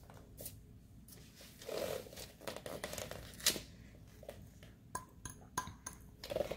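Faint handling noise as a red plastic cup is squeezed and flexed by hand to push the last of its acrylic paint out, giving light crinkles and small clicks that come more often in the last couple of seconds.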